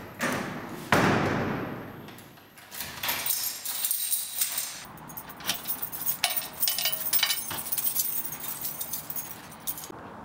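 A door knocks twice in the first second, the second knock louder and ringing on as it fades. Then a bunch of keys jangles and rattles in a lock for several seconds.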